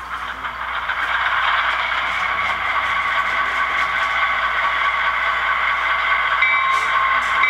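Sound-decoder diesel prime mover of a Bachmann HO EMD E7-A model, playing through the locomotive's small on-board speaker. It runs as a steady rushing rumble that gets louder about a second in, and a steady tone joins in near the end.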